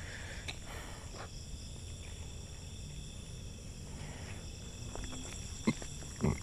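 A steady chorus of night insects chirring in several thin, high, unbroken tones, over a low rumble. Two short thumps come near the end.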